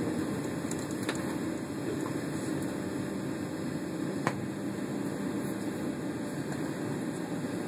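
Steady hum and rush of air from a Boeing 757's cabin air conditioning while the airliner sits parked at the gate, with two brief clicks about one and four seconds in.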